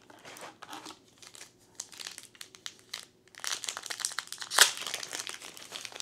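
Foil wrapper of a sealed trading-card booster pack crinkling as fingers work at tearing it open. Scattered crackles at first, then dense crinkling from about three and a half seconds in, with one loud crackle near the end.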